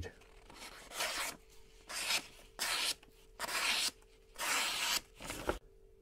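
A sharp sheepsfoot knife blade slicing through a magazine page: about six hissing cuts, each roughly half a second long, showing the razor edge the blade takes.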